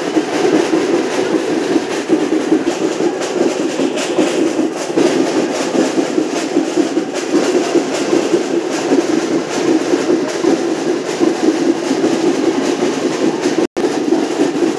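Loud, steady din of a dense festival crowd, thick with quick percussive beats. It cuts out for a split second near the end.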